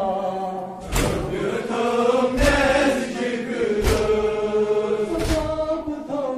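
Male voices chanting a noha lament in a slow, drawn-out melody, a lead singer on a microphone with the group joining in. Four chest-beating strikes of matam fall in time with it, about one every second and a half.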